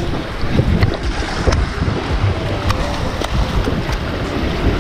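Wind noise on the microphone over ocean surf, with a few light clicks.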